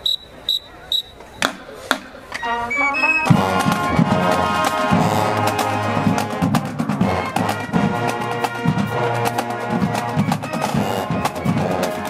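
High school marching band striking up: a few short whistle blasts from the drum major, a quick rising run of notes, then about three seconds in the full band enters, brass playing over a steady drumline beat.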